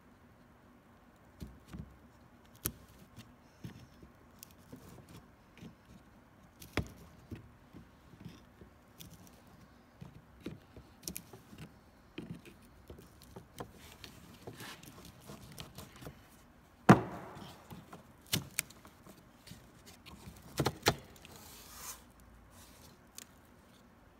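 Scattered small clicks and knocks of plastic parts being handled, as of the ECU and its wiring-harness connectors, with a sharper knock about two-thirds of the way through and a brief rustle near the end.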